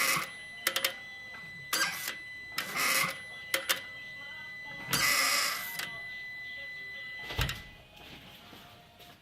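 Car clutch actuator creaking, a series of short squeaks of uneven length with the longest about five seconds in. A steady high tone runs underneath and stops near the end.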